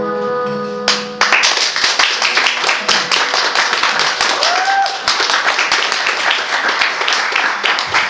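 The final sustained keyboard chord ends about a second in, and the audience breaks into applause that carries on to the end, with a short rising call about midway.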